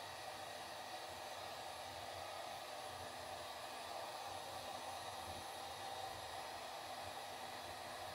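Heat gun running steadily, blowing hot air to thaw the ice in a refrigerator freezer.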